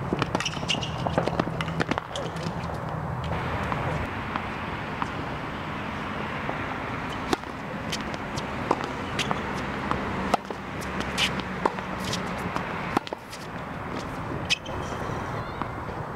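Tennis balls being struck by racquets and bouncing on a hard court during a rally: sharp pops at irregular intervals of roughly a second, over a steady background hum.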